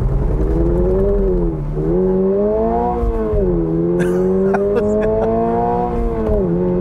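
Naturally aspirated 2.4-litre flat-four of a 2022 Subaru BRZ accelerating hard at full throttle from a standing start, heard from inside the cabin. The revs climb and drop three times as it changes up through the manual gearbox. This is a 0-60 launch on a wet road with heavy wheelspin.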